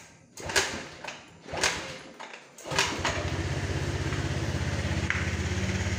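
Scooter's small single-cylinder engine being cold-started: two short cranking attempts, then it catches about three seconds in and settles into a steady, evenly pulsing idle to warm up.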